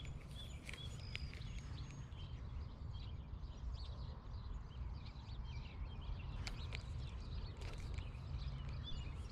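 Several birds chirping over a low steady rumble, with a couple of faint clicks.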